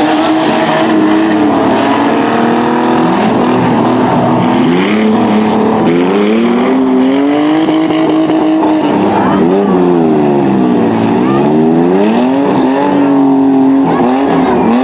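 Engines of several demolition-derby mini trucks and small SUVs revving loudly at once, their pitches rising and falling over and over as the trucks accelerate, back up and turn in the mud.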